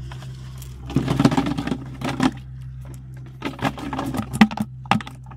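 A plastic fish trap is handled and shaken over a plastic bucket. About a second in there is a burst of rattling and scraping. Later comes a run of sharp knocks and taps as fish drop into the bucket and flap against its plastic sides.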